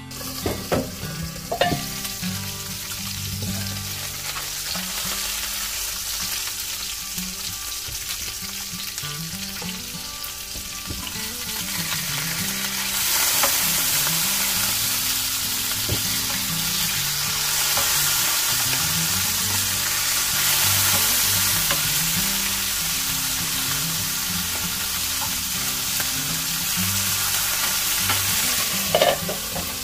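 Salmon frying in oil in a pan: a steady sizzle that grows louder about twelve seconds in, with a few sharp knocks near the start and again near the end.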